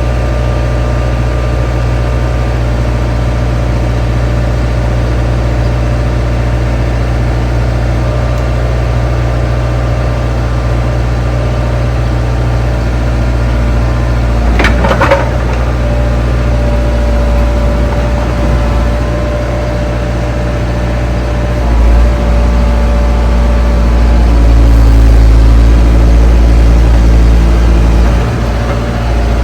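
Diesel engine of a 2002 Bobcat compact excavator running steadily, with a sharp knock about halfway through. Near the end the engine works harder for several seconds, louder and deeper, then eases off.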